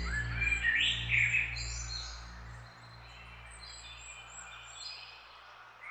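Birds chirping and calling over a low, sustained music drone. The calls are loudest in the first two seconds, then thin to faint high chirps as the drone fades out.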